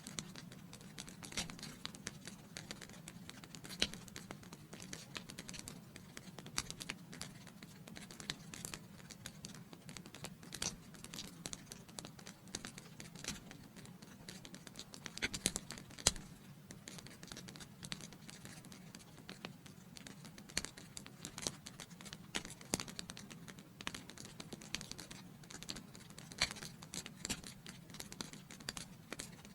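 Wood fire burning in a fireplace: a steady low rush of the flames with irregular crackles and pops throughout, one louder pop about sixteen seconds in.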